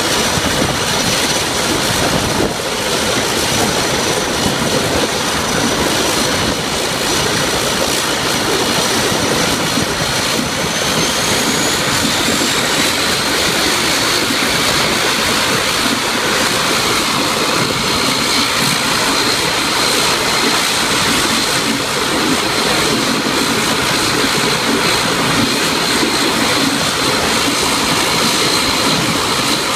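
ATR 72 turboprop engines running on the ground: a loud, steady turbine whine over the propellers' noise. About ten seconds in the whine rises in pitch as an engine spools up, then holds steady at the higher pitch.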